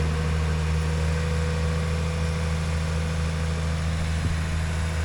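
Heavy diesel engine of earthmoving equipment running steadily, an even low hum.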